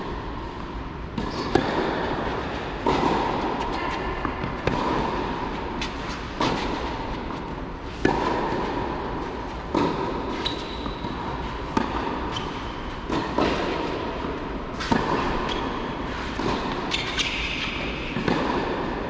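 Tennis rally on a clay court: a racket strikes the ball sharply about every one and a half to two seconds, the two players hitting it back and forth, over a steady hiss of the large covered hall.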